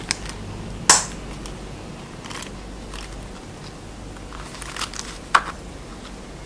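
Handling noise from a small monogram-canvas zip card holder being turned over and opened in the hands: a few sharp clicks and light rustles, the loudest click about a second in.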